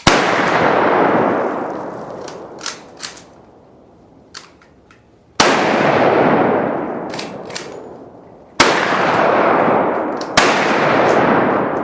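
Four loud gunshots, unevenly spaced, each followed by a long echoing decay, with a few fainter sharp cracks from other shots in between.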